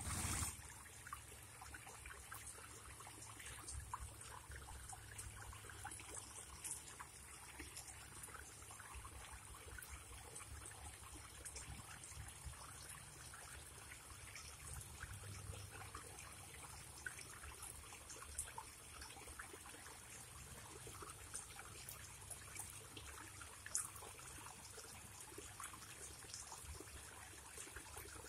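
Koi pond water trickling steadily and faintly, with many small drips and splashes.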